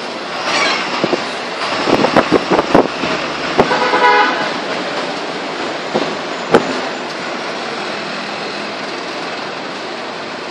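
Steady traffic noise with a run of sharp knocks and rattles, then a short horn toot about four seconds in and another single knock a couple of seconds later.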